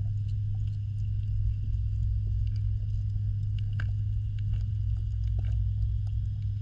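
Steady low electric hum of a pond pump and filtration system heard through the water, with scattered faint clicks and taps.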